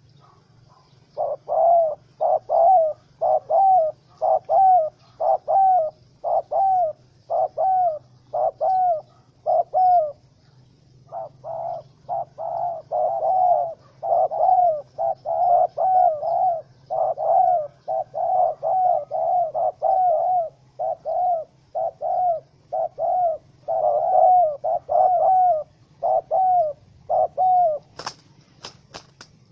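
Spotted dove calling: a long run of short cooing notes, about two a second, with a brief pause about ten seconds in. A few sharp clicks near the end.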